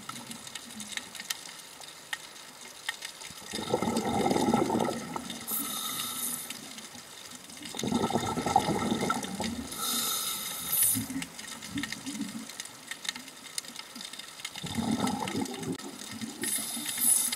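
Scuba regulator breathing heard underwater: three bubbling exhalations about every five to seven seconds, each followed by a short hissing inhalation, over a faint steady crackle of clicks.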